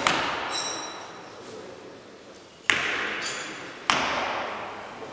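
Throwing knives striking wooden targets three times: each a sharp hit followed by a metallic ring from the steel blade that dies away in the echo of a large hall.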